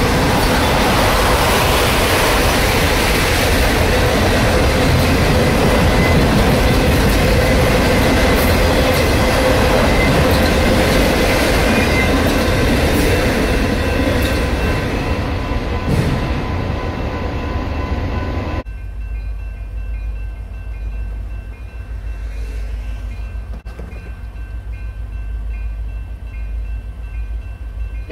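Freight train's autorack cars rolling past close by: a steady rumble of steel wheels on rail with thin squealing tones, fading away past the halfway point. After that a grade-crossing warning bell rings in an even, repeating rhythm.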